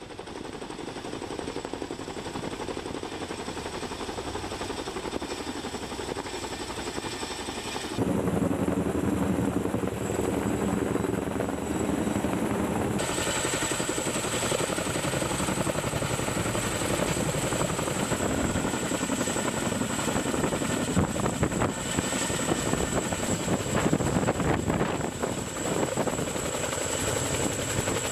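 Steady engine noise of military machinery, broken by two abrupt cuts about eight and thirteen seconds in, each changing its character; the last part is louder, with a fast rough beating.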